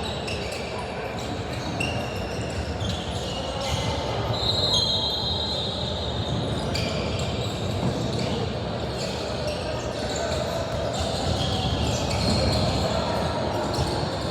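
Basketball game play in a gym: the ball bouncing on the court in repeated knocks, with short high sneaker squeaks scattered through, a longer one about four seconds in, over steady background noise.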